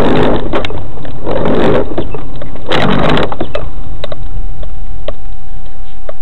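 Loud, distorted in-car audio from a vehicle: three rough bursts of noise in the first half, then a single steady high tone that starts about halfway through and holds, with scattered clicks.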